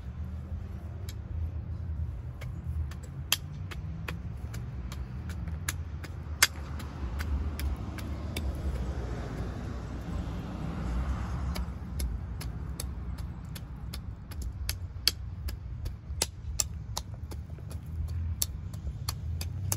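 Steady low outdoor rumble with scattered sharp clicks, and a wider hiss that swells and fades about eight to twelve seconds in.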